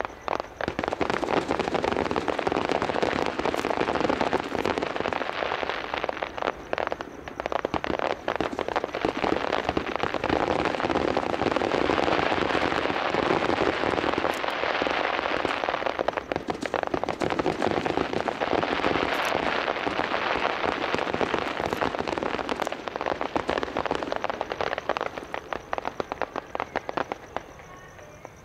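Fireworks crackling: a dense, continuous crackle of countless small pops that dies away over the last few seconds.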